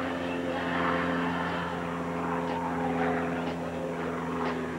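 A steady mechanical hum that holds one pitch without rising or falling, with faint voices in the background.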